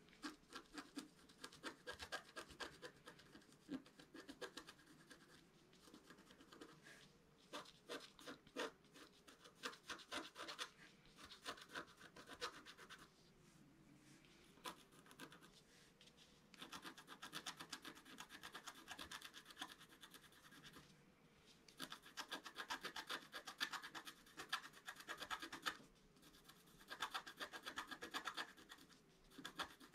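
Wooden stylus scratching the black coating off a scratch-art paper sheet in runs of quick, short strokes, with a few brief pauses between runs.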